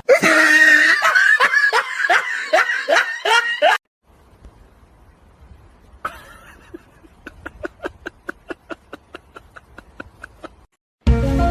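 Laughter: a loud run of quick, repeated laughs, then after a short pause a quieter, steadier run of about four laughs a second.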